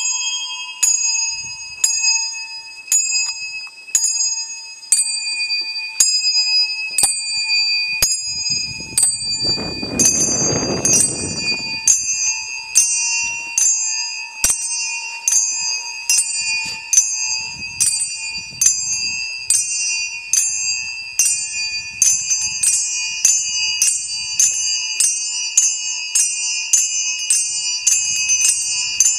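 Small handbells struck in a steady pulse with bright, ringing high tones, about one stroke a second at first and quickening to about two a second past the halfway point. Beneath them a bowed musical saw holds one steady, slightly wavering tone. A brief hiss-like noise comes about ten seconds in.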